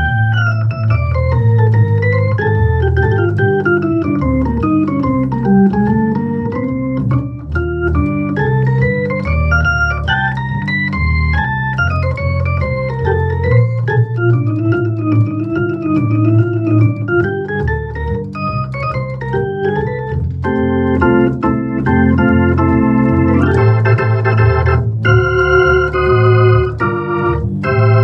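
Hammond XK-1c organ playing jazz: flowing single-note melody lines rise and fall over a low bass line. About twenty seconds in, it changes to repeated stacked chords.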